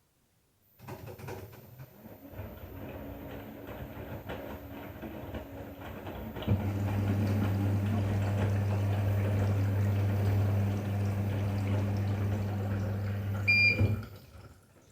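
Washing machine running: water hissing into it, then about six seconds in its motor starts with a steady hum that stops near the end, just after a short electronic beep.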